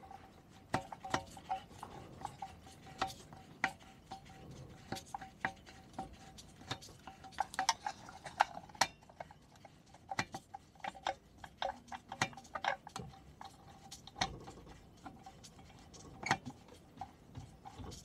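Screwdriver working screws out of the metal casing of a Minarelli V1 50cc two-stroke engine: irregular metallic clicks and clinks of the tool tip on the screw heads and alloy.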